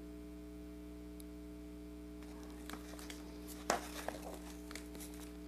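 Steady low room hum. From a little over two seconds in, the soft rustle and a light tap of a picture-book page being turned.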